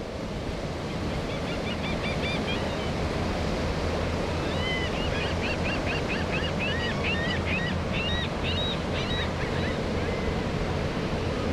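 Distant drone of a formation of SNJ Texans' Pratt & Whitney R-1340 nine-cylinder radial engines as the aircraft approach, slowly growing, under a steady rushing background noise. Faint high chirps sound now and then in the middle.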